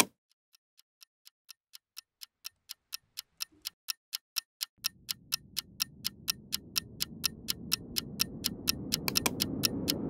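Ticking-clock sound effect, about four ticks a second, growing steadily louder. From about five seconds in, a low rumbling drone swells up beneath it, building tension.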